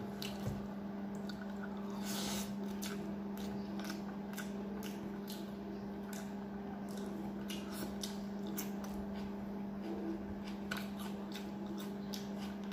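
Fingers mixing rice with pea and potato curry on a steel plate and the mouthfuls being eaten: wet squishing with scattered small clicks and smacks. A steady low hum runs underneath.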